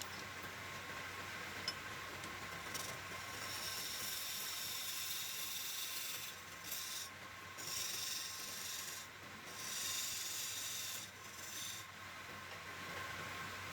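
A wood lathe running with a steady whine while a tool rasps against the spinning wood. The rasping hiss comes in several long strokes with short breaks between them.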